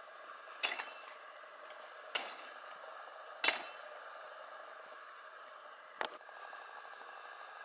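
Four sharp chops of a machete striking branches and vines while clearing a jungle trail, unevenly spaced, over a steady drone of rainforest insects.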